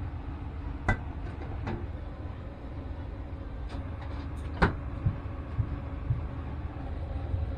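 Kitchenware being handled: a few sharp knocks, the loudest a little past halfway, over a steady low rumble.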